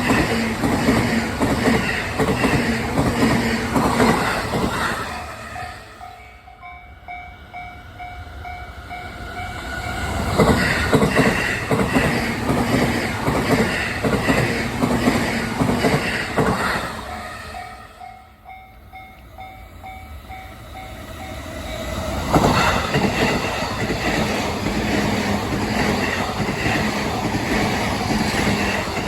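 E233-6000 series electric commuter trains running past a level crossing, wheels clattering over the rail joints. The sound swells and falls away twice as trains go by. In the two lulls, about six and eighteen seconds in, the crossing's warning bell rings in a steady, even beat.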